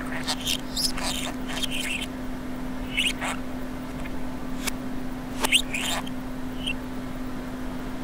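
Pet budgerigar chattering and warbling in short chirpy bursts, played backwards, over a steady low hum. The bursts are busiest in the first two seconds, then come scattered, with a sharp click about halfway.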